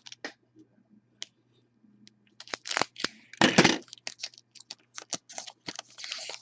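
Trading card pack wrappers and cards being handled: scattered clicks and rustles, with two louder crinkling swishes a few seconds in and another rustle near the end, as a pack is torn open and its cards shuffled.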